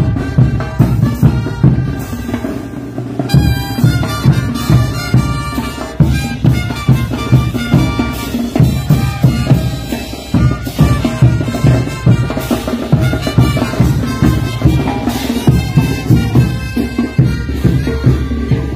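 Bolivian brass band playing traditional dance music for the Potolos dance: bass drums and cymbals keep a steady, regular beat under brass horns playing the tune.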